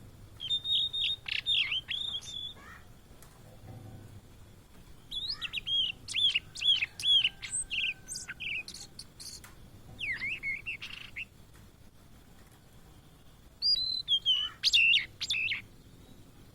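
Blue-and-white flycatcher singing: four phrases of high whistled notes with quick up-and-down slurs, separated by pauses of one to two seconds.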